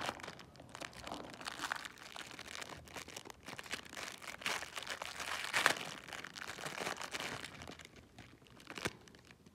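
Thin plastic toy packaging crinkling and rustling as small bags are pulled and torn open by hand, in irregular crackles, loudest about halfway through, with a short sharp click near the end.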